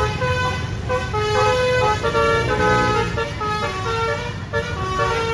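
Basuri telolet bus horn playing a tune of short notes that step up and down in pitch, over a steady low rumble.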